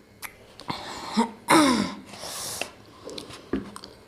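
A woman reacting to the burn of hot chilli food: hissing breaths and a short cough-like vocal sound that falls in pitch about a second and a half in, with a few small clicks.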